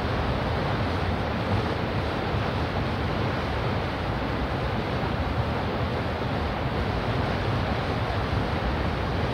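Departing cross-channel ferry: a steady low rumble with a wash of water and wind noise, unchanging throughout.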